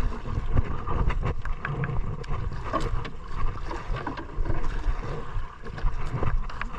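Wind buffeting the microphone in an uneven low rumble, with scattered clicks and knocks from a handline being hauled in by hand aboard a small outrigger boat.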